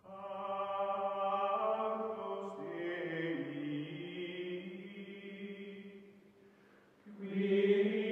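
Background music of slow chanting voices holding long notes, changing pitch every few seconds; it dies down about six seconds in and swells back loudly at about seven seconds.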